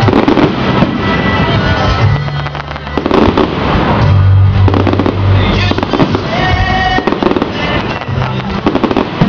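Display fireworks going off in quick succession: a dense, continuous run of bangs and crackling.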